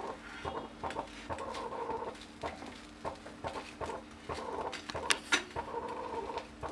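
Metal spatula scraping and tapping on a dosa tawa as a dosa is folded over, with a few sharp scrapes about five seconds in, over a steady low hum. Short clucking sounds come and go in the background.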